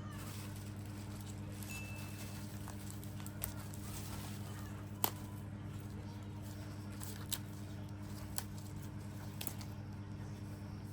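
Steady low hum with a handful of separate light clicks and taps of tableware, about five spread over the stretch.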